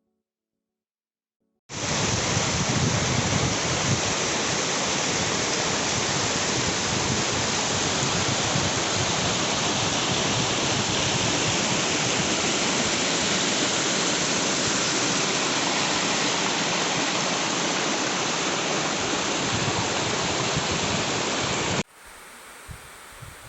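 Steady rush of falling water from a waterfall, cutting in suddenly about two seconds in. Near the end it cuts off just as suddenly to a much quieter outdoor hiss.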